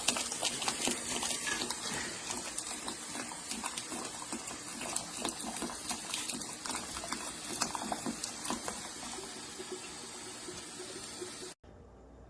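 Hot water streaming and splashing from a Chefman electric hot water urn's dispenser, pouring out by itself, which is a dispensing fault. The sound stops abruptly near the end.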